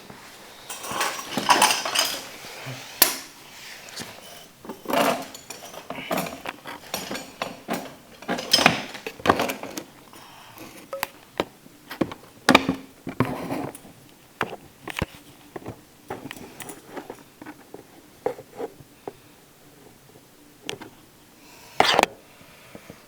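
Irregular clicks, knocks and clatter of the snow thrower's plastic housing and metal screws being handled and fitted back together, with short scraping bits; one of the sharpest knocks comes near the end.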